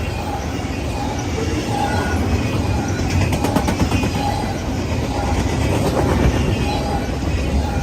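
A train rolling past at speed on the far track, a steady rumble of wheels on rail with light rhythmic clicking.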